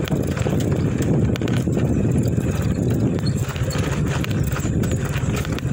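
Footsteps crunching and scuffing on a rough dirt and gravel road in a steady run of knocks, with rustling and handling noise from a handheld phone.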